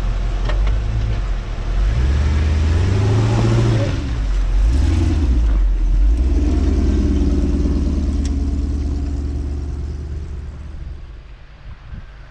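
Engine of a modified off-road 4x4 revving up and down in short pulses, then running steadily at higher revs before fading away near the end.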